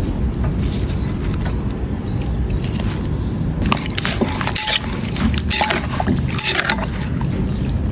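Wooden pestle knocking and a metal spoon scraping as beef and vegetables are pounded and turned in a clay mortar. The knocks come irregularly from about halfway in, over a steady low rumble.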